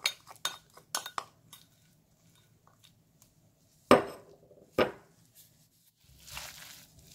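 A spoon clinks a few times against a glass mixing bowl, then two louder knocks on the bowl ring briefly about four and five seconds in. Near the end comes a soft rustle as gloved hands toss the seasoned bellflower-root strips.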